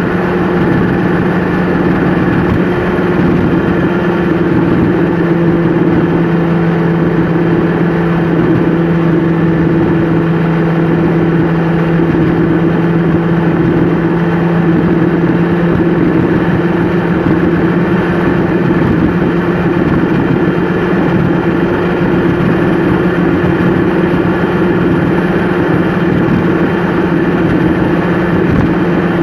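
Engine and road noise heard inside a vehicle's cab while it cruises steadily along a highway: a constant drone with a steady low hum and no change in speed.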